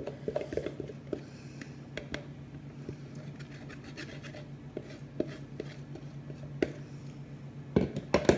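A utensil scraping the last of the mixture out of a plastic jug: light scratching with small taps and clicks, then a few louder knocks near the end.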